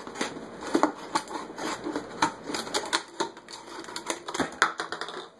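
Scissors cutting around a thin plastic 2-liter pop bottle: an irregular run of sharp snips and crackles of the plastic as the bottle is turned, stopping near the end.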